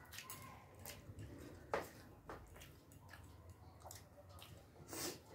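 Faint sounds of eating rice and mutton curry by hand: fingers squishing and mixing rice on metal plates, chewing and lip smacks. A few short, sharp clicks, the loudest about five seconds in.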